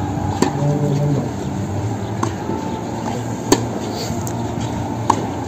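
Tennis ball struck by rackets in a baseline practice rally: four sharp pops, about one and a half to two seconds apart, the third the loudest.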